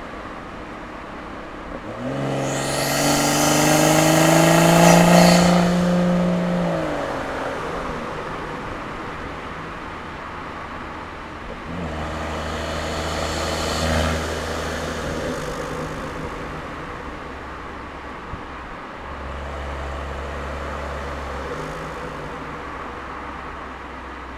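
BMW M240i's B58 turbocharged 3.0-litre inline-six, Stage 2 tuned with a performance intake, catted downpipe and resonator delete, heard through microphones in the engine bay and at the exhaust. About two seconds in it pulls hard, rising in pitch for about four seconds before backing off. A lighter pull follows around the middle with a brief sharp spike, then a low drone near the end.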